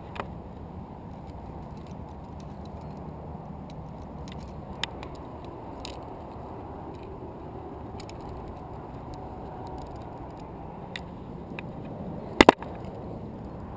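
Clicks and clinks of climbing gear, metal carabiners of a quickdraw being clipped to a bolt, over a steady low background rush, with two sharp loud clicks close together near the end.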